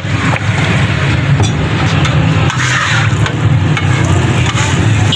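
Cooking oil sizzling on a hot flat-top griddle as it is squirted on from a squeeze bottle, over a steady low rumble, with a few sharp clicks.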